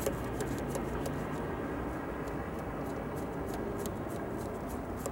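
Synthetic paintbrush stroking oil paint across a canvas, a run of quick, irregular soft scratches as the sky is blended into a smooth gradient, over a steady low background noise.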